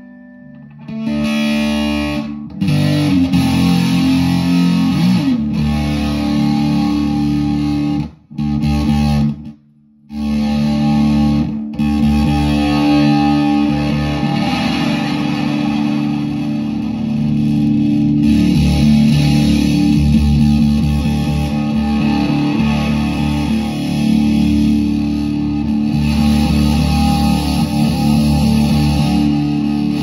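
Electric guitar (Epiphone Les Paul Custom with Gibson '57 pickups) played through a QCD Supa-Fuzz, a Univox Super-Fuzz-style octave fuzz pedal, into a Marshall JTM45 valve amp: loud, thick, distorted sustained chords and riffs. The playing stops short several times in the first dozen seconds, then runs on without a break.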